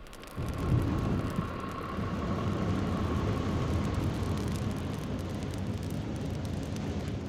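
Dragon breathing sound effect: one long, low, rumbling breath lasting about seven seconds, easing off slightly near the end.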